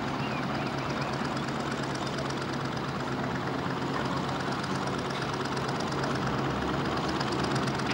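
An engine running steadily, a continuous low drone with an even hiss over it.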